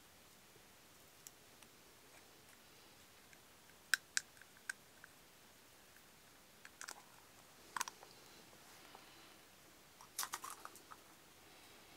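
Sharp taps and small cracks of an egg being knocked on the edge of a split green bamboo tube and broken open. They come as a few separate clicks, with a quick cluster near the end.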